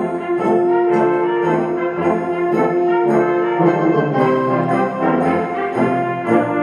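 Concert band of woodwinds and brass playing under a conductor. A held note in the first few seconds gives way to a busy passage of short, changing notes.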